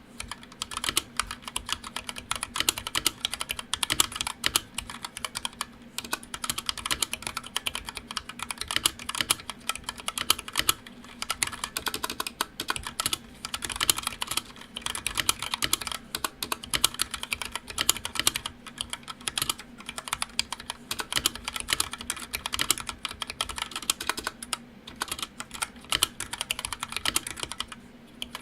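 Steady, fast typing on a TADA68 mechanical keyboard with stock Gateron Yellow linear switches: a dense run of keystroke clacks with brief pauses here and there.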